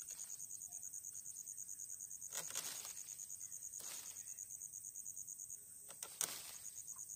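A small curved knife cutting a point onto a thin wooden stick: a few short sharp scraping cuts, the sharpest near the end. Behind them an insect's high pulsing trill runs steadily and pauses briefly near the end.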